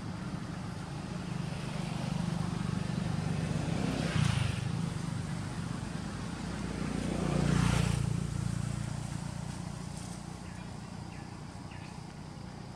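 Low motor-vehicle engine hum, swelling briefly about a third of the way in, then rising to its loudest and fading again a little past halfway, as a vehicle passes.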